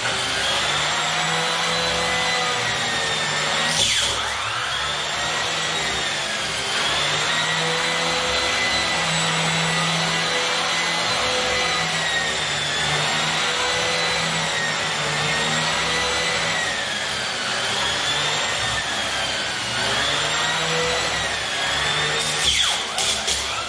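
Vacuum cleaner running on carpet, its motor whine dipping and rising in pitch about every two seconds. A knock about four seconds in and a few clicks near the end.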